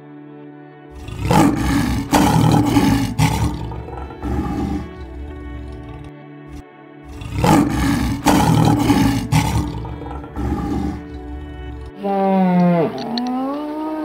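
White lion roaring twice, each roar a rough series of pulses lasting a few seconds, over background music. Near the end a different animal gives a single long call that drops and then rises in pitch.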